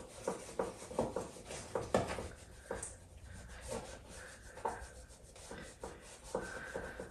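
Whiteboard eraser rubbing across a whiteboard in short, irregular scratchy strokes, with a brief squeak near the end.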